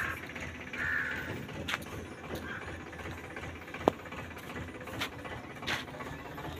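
JCB 3DX backhoe loader's diesel engine idling with a steady low rumble, with a few sharp clicks and knocks and a short rasping sound about a second in.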